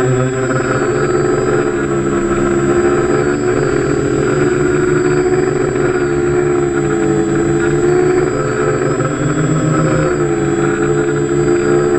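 Motor and rotors of a radio-controlled model aircraft hovering, heard close from its onboard camera: a steady drone whose pitch wavers gently as it holds position, with a thin high whine over it.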